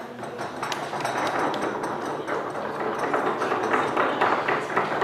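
Audience applauding, many hand claps overlapping into a dense patter.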